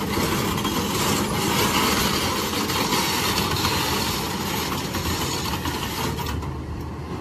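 Heavy construction machinery's diesel engine running steadily: a constant low hum under a dense, noisy rumble, easing a little near the end.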